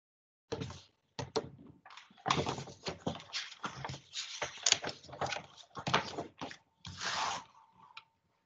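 A paper picture book being opened and its pages turned and pressed flat by hand: a quick run of paper rustles, rubs and soft knocks, with a longer rub of hands across the pages near the end.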